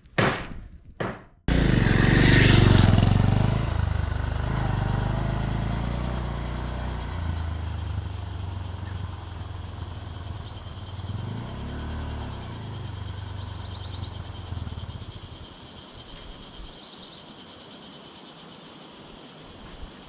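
A motor vehicle's engine running, starting abruptly about a second and a half in after a few short knocks, loudest at first and then fading steadily until it is faint near the end, with a brief rise and fall in pitch about two-thirds of the way through.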